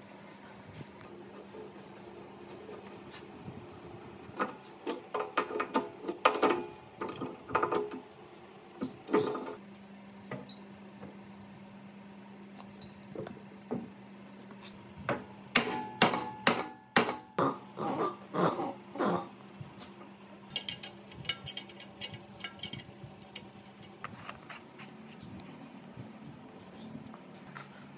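Metal clinks, taps and knocks of air-compressor parts and tools being handled and fitted during reassembly, in two busy spells, over a steady low hum. A few short high chirps fall in pitch early on.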